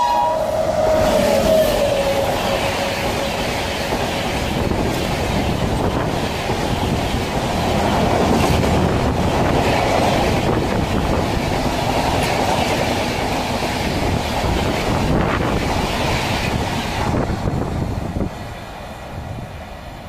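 An express train hauled by an electric locomotive passes at speed. Its horn drops in pitch and dies away in the first second or two, then the coaches rush past with a clickety-clack over the rail joints. The noise fades near the end as the train goes away.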